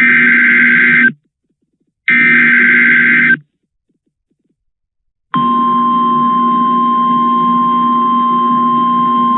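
Emergency Alert System SAME header: the last two of three raspy digital data bursts, each a little over a second, with a pause between them. About two seconds after the last burst, the steady 1050 Hz NOAA Weather Radio warning alarm tone starts and holds, signalling that a warning message follows.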